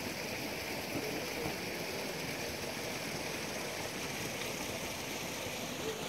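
Steady rushing of flowing stream water from a spring, even and unbroken.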